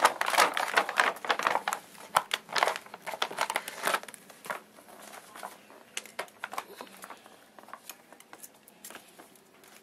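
Crinkling and rustling with quick scratchy clicks as a ferret scrabbles about in a cardboard box and its packing material, busiest and loudest for the first few seconds, then thinning out.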